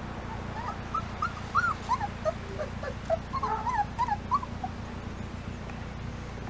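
Four-week-old rough collie puppies whimpering: a string of short, high squeaky whines, some overlapping, starting about a second in and stopping about four seconds later.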